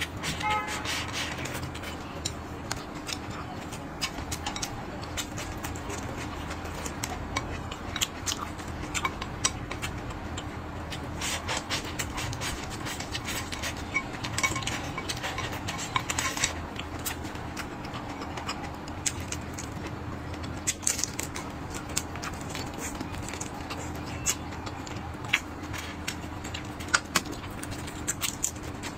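Close-up eating sounds: noodles slurped and chewed, with many sharp clicks and scrapes of wooden chopsticks against a ceramic bowl, over a faint steady hum.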